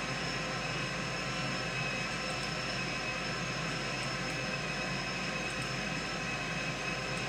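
A steady machine drone with several steady whining tones layered over a hiss, unchanging throughout.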